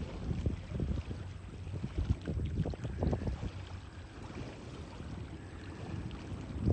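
Tugboat's diesel engine heard as a low, uneven rumble as it pushes a barge.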